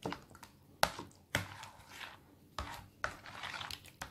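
A spoon stirring a thick, creamy buko pandan salad of gelatin cubes in a plastic mixing bowl, with a handful of sharp knocks of the spoon against the bowl at irregular intervals.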